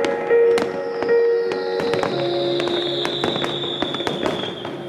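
Aerial fireworks shells bursting in quick succession, a string of sharp bangs and crackles that thins out and grows quieter near the end. Music with long held notes plays underneath.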